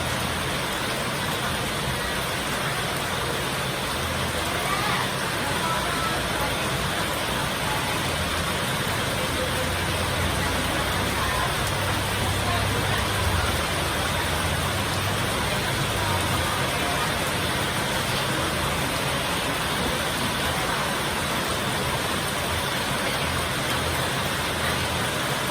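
Heavy rain falling steadily in a strong wind, with a low rumble that swells about halfway through.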